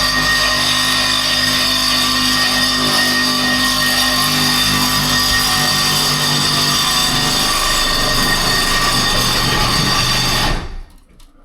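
A power tool running steadily with a high whine, cutting off abruptly about ten and a half seconds in.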